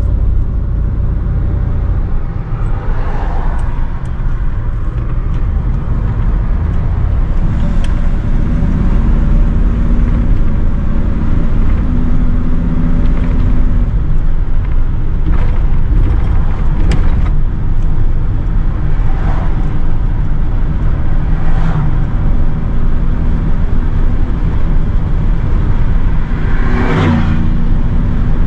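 A 1973 GMC C2500 pickup truck driving, heard from inside the cab. A loud, steady low engine and road rumble, with the engine note stepping up and down a few times as the truck changes speed. A few short clicks or rattles.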